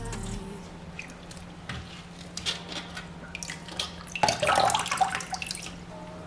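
Kitchen tap water running in short spurts, with scattered clicks and clatter. The water is heaviest and loudest for about a second, around four seconds in, over a steady low hum.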